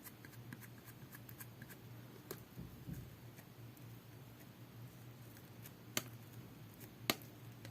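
Faint sticky clicks and crackles of hands pressing and stretching a two-layer jelly-textured slime, with two sharper pops about six and seven seconds in.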